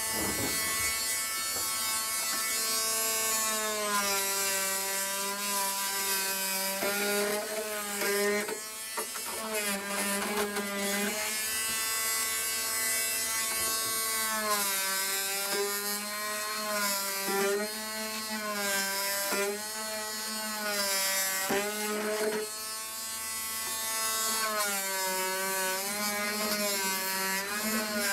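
Corded oscillating multi-tool fitted with a toothless knife blade, running as it trims cured closed-cell foam flush along a fiberglass stringer. Its whine wavers up and down in pitch and dips briefly a couple of times.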